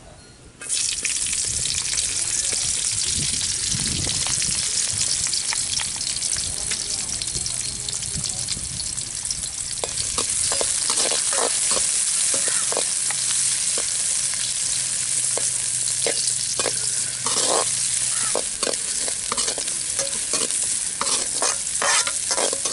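Sliced onions hit hot oil in a metal kadai and start sizzling all at once, about half a second in, then keep frying with a steady hiss. From about halfway, a slotted metal spatula stirs them, scraping against the pan again and again.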